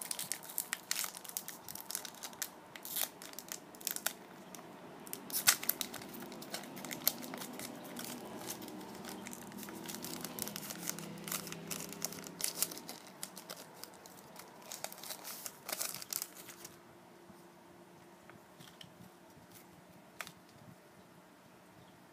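Foil booster pack wrapper crinkling and tearing as it is handled and opened, a dense crackle that dies down to a few faint clicks about sixteen seconds in.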